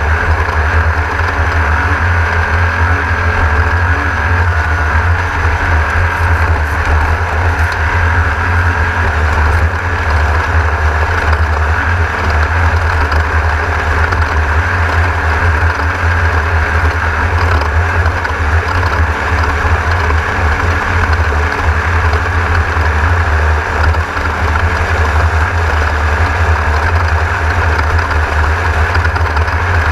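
Class 1600 desert race car's air-cooled VW engine running hard and steady at race pace, heard from inside the car, with a steady deep drone.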